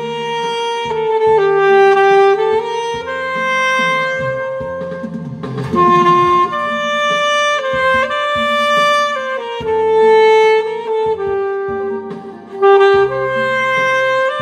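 Instrumental music: a saxophone plays a slow melody of long held notes over a backing track.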